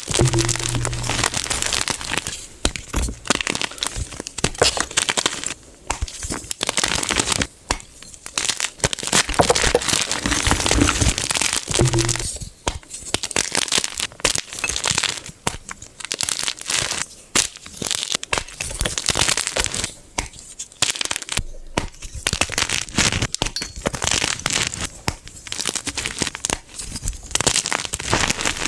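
Blocks of gym chalk being crushed, a dense run of crisp crunching and crumbling in bursts with short pauses between them.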